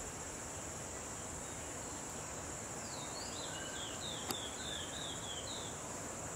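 Steady high-pitched insect drone over a background hiss, with a bird calling a quick run of about eight short falling chirps from about three seconds in. A single sharp click sounds a little after four seconds.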